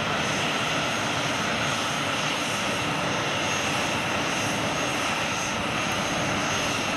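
Boeing 737-800's CFM56 jet engines running steadily, a broad even rush with a thin high whine over it.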